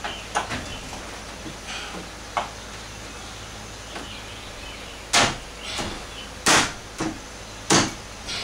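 Hands pushing and knocking on a plastic aftermarket grille to seat its clips in a Chevy Trailblazer's header panel, where the clips on that side resist going in. A few light clicks, then in the second half three loud, sharp knocks a little over a second apart with lighter knocks between them.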